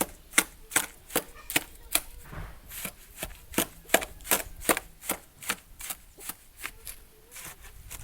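Rapid, evenly spaced hammer blows, about two to three a second, knocking apart an old wooden fence.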